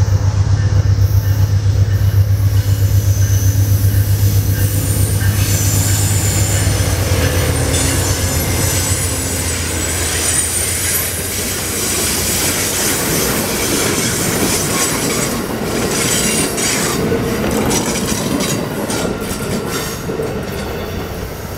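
Amtrak passenger train of double-deck Superliner cars passing close by. A loud, deep drone from the diesel locomotive fills the first several seconds. Then the cars roll past with steady wheel-on-rail noise and a faint high squeal, and a run of clickety-clack over rail joints near the end as the last car pulls away.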